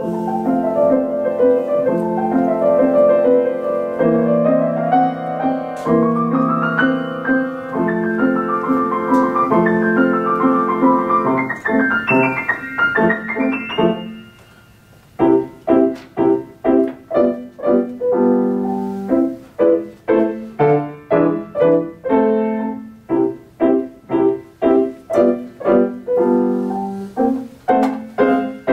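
Steinway & Sons grand piano played solo. Flowing runs sweep up and down for about fourteen seconds, then after a brief pause come short, detached chords in a steady pattern, about two a second.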